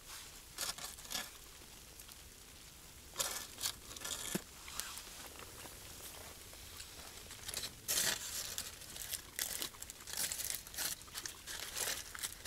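Irregular rustling and crinkling with short crunches, starting about three seconds in and loudest about eight seconds in.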